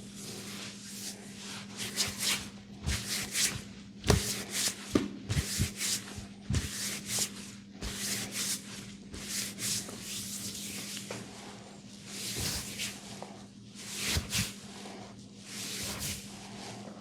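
Fingers rubbing and scratching through hair on the scalp in a run of quick, uneven rustling strokes, with a few duller knocks, over a steady low hum.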